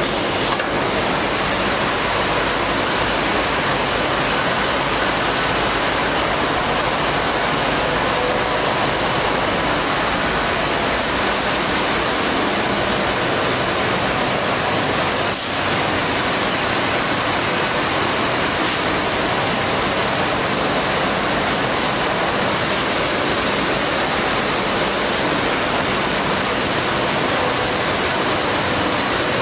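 WEEKE Optimat BHX 560 CNC through-feed drilling machine running with its dust extraction on: a steady, even rushing noise with no separate drilling strokes. There is a brief dip about halfway through.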